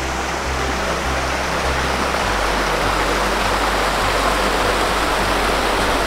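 Shallow rocky forest stream rushing and splashing over stones in a steady wash of water noise.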